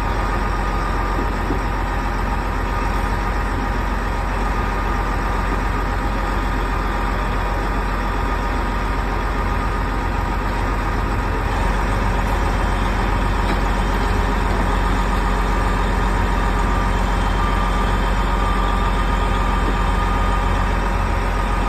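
Heavy rotator tow truck's diesel engine running steadily to power its boom winches as they lift an overturned cement mixer truck, with a thin steady whine over the low rumble. It gets a little louder about halfway through.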